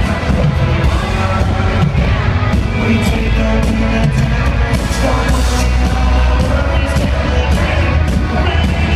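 Live country band playing a song loud, with guitars, heavy bass and drum hits under singing.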